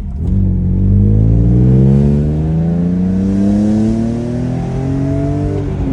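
Supercharged BMW M3 engine pulling hard under acceleration, its note rising steadily for about five seconds, then dropping off near the end as the throttle is lifted.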